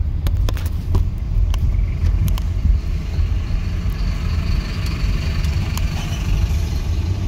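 Low rumble of a car driving slowly, heard from inside the cabin, with scattered light clicks and rattles.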